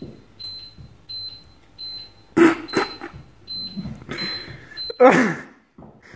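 A cooker hob's control panel beeping: a run of short, high electronic beeps about twice a second as the hob is set to preheat the frying pan, stopping near the end. A couple of clattery knocks fall in the middle, and a voice cries out near the end.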